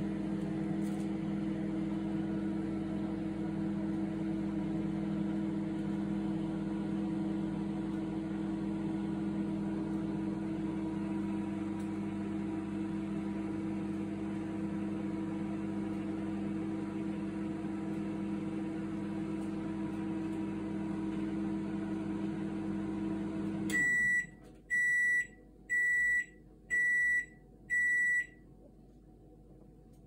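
Microwave oven running with a steady hum, then shutting off and sounding five beeps about a second apart, signalling the end of its heating cycle.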